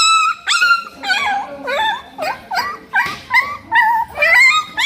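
Puppy whimpering and yelping: a rapid run of short, high-pitched cries, two or three a second, each bending up and down in pitch.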